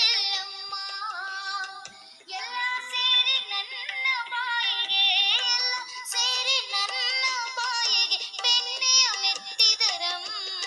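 A song with a high-pitched singing voice carrying a wavering melody over light music, with a brief pause about two seconds in.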